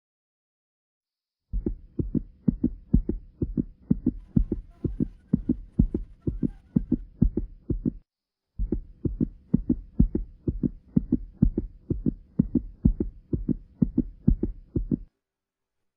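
Fast heartbeat sound effect: a rapid, even run of low beats that starts about a second and a half in, breaks off briefly around the middle, then carries on and stops shortly before the end.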